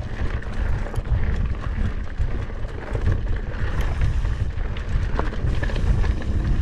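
Mountain bike descending a dirt trail: wind buffeting the microphone in a heavy low rumble, with tyres on dirt and frequent sharp clicks and rattles from the bike over the rough ground.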